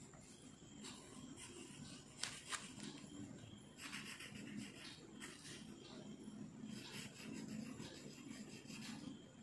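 Pen writing on paper, a faint, irregular scratching of strokes as a line of handwriting is written out.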